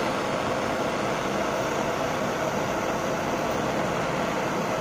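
Electric heat gun running, a steady blowing hiss of its fan and hot air.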